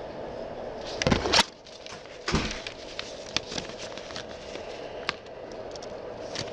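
Handling noise on a body-worn camera's microphone: two heavy bumps about one and two seconds in, then scattered clicks and rustling, over a steady low hum.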